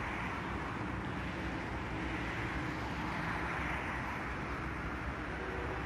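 Steady outdoor background hum of distant city traffic, an even wash of noise with no distinct events.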